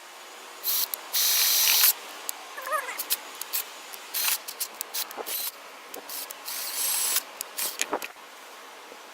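Electric hand drill with a 29/64 bit cutting into a cast-iron engine block to drill out a damaged head-bolt hole for a Helicoil, run in short, irregular bursts, the longest about a second and a half in.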